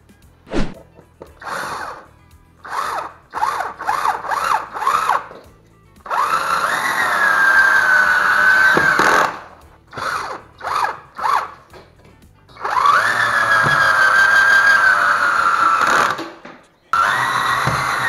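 Cordless drill-driver driving screws through a metal drywall profile into a timber beam: a string of short trigger bursts, then two long runs of steady motor whine whose pitch sags as each screw pulls down, and a third run starting near the end.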